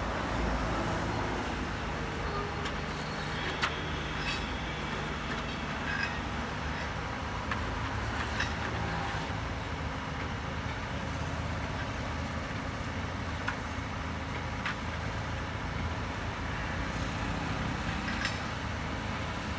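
Excavator's diesel engine running steadily, with a few sharp clicks scattered through.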